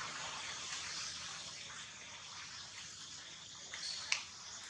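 Steady outdoor hiss with light rustling of dry leaves as monkeys shift on the leaf litter, and one brief, sharp high-pitched sound about four seconds in.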